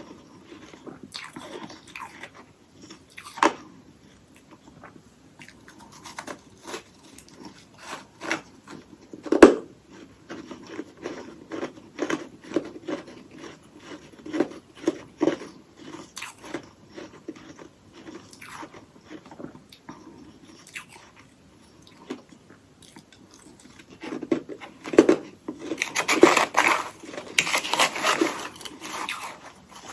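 Hollow ice sticks coated in freezer frost being bitten and chewed: a string of sharp crunches, with one loud bite about nine seconds in and a denser, louder run of crunching near the end.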